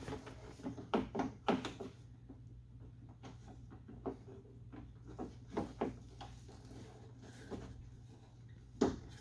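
Irregular light knocks and clicks of tools and metal and plastic parts being handled inside a car door while the door handle assembly is worked loose, the loudest knock near the end, over a steady low hum.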